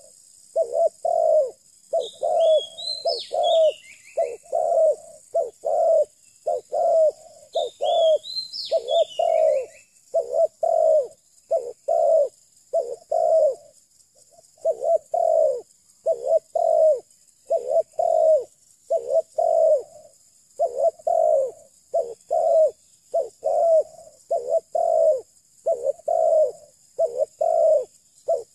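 Spotted dove (terkukur) cooing over and over in short repeated phrases, with a brief pause about halfway through. A small bird chirps briefly twice early on, over a steady faint high hiss.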